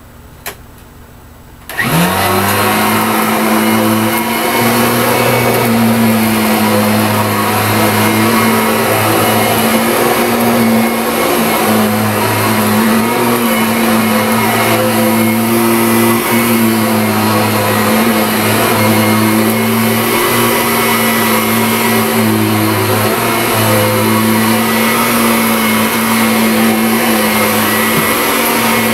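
Kirby Ultimate G-Series Diamond Edition upright vacuum cleaner switched on: a click, then about two seconds in its motor starts, spinning up quickly to a steady running hum. It then runs steadily while being pushed over carpet.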